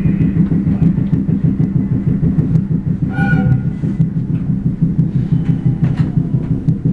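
Train bogie making an abnormal gotogoto rumble and knocking, a steady low pounding that beats several times a second as the car rolls; the sound is the sign of a fault in the bogie. A brief high-pitched tone sounds about three seconds in.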